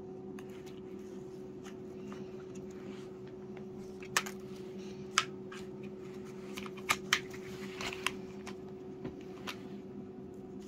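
A cat playing with a feather wand toy: several sharp clicks and taps with a little rustling as it pounces and paws at the feathers, over a steady low hum.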